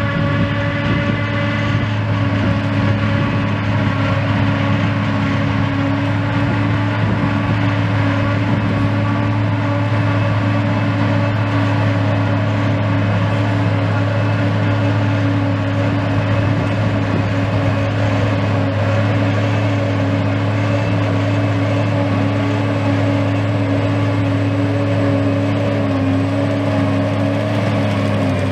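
John Deere 8800i self-propelled forage harvester chopping grass for silage, running steadily under load with a deep hum and a set of higher steady whining tones.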